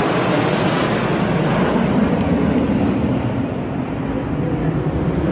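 Formation of jet aircraft flying over: a steady jet rumble, easing slightly a little before the end.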